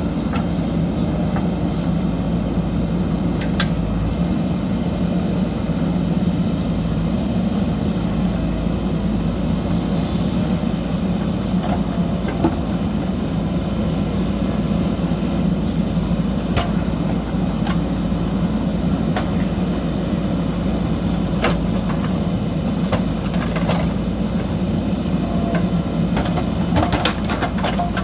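JCB backhoe loader's diesel engine running steadily, with a few short sharp clanks scattered through.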